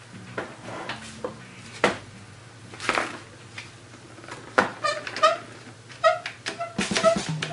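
One-handed bar clamps being ratcheted and knocked into place on a foam-lined Kydex holster press: scattered clicks and knocks. A few short high squeaks come between about five and seven seconds in.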